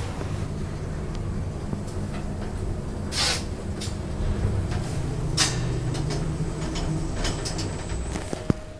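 Passenger lift running: a steady low hum, with two brief rushing noises in the middle and a sharp click near the end.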